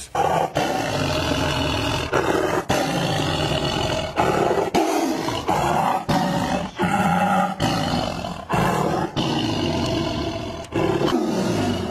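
Tiger roaring at close range in a long run of loud, rough roars, broken every second or so by a brief pause for breath.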